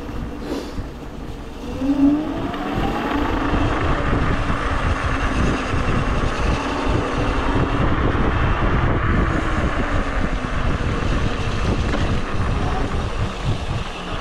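Electric scooter riding along, its motor whining with a pitch that rises about two seconds in as it speeds up, under a heavy low rumble of wind on the microphone.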